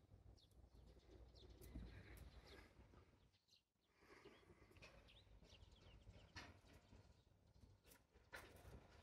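Near silence: faint rustling and soft taps from a cat pawing and grabbing a feather teaser toy on a blanket.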